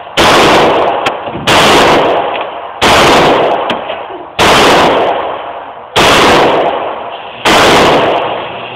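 Bersa Thunder .380 semi-automatic pistol fired six times at a slow, even pace, about one and a half seconds between shots. Each shot rings on in a long echo off the indoor range's walls, and a few faint clicks fall between shots.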